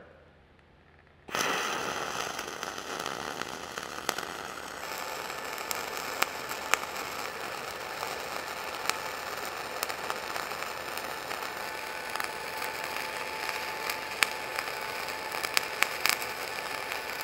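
Gas-shielded (dual shield) flux-cored arc welding on a vertical 3G test plate, laying the fill pass. The arc strikes about a second in and burns as a steady crackle with occasional sharp pops.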